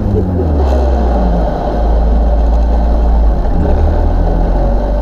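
Volvo 940 rally car's engine heard from inside the caged cabin, rising in pitch briefly near the start, then running steadily at low speed.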